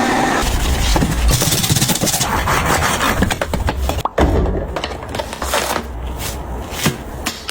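Household cleaning sounds: steady scraping and rubbing, broken by several sharp knocks and clicks.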